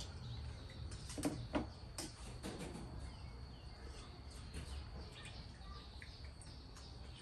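Faint bird chirps over a low steady background hum, with a few light clinks of spoons on dishes between one and two seconds in.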